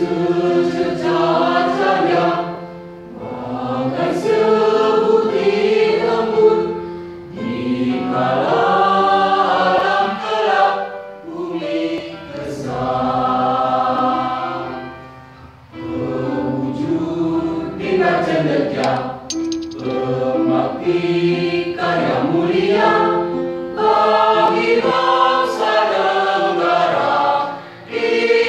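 Mixed choir of men's and women's voices singing together, phrase by phrase with short breaks for breath.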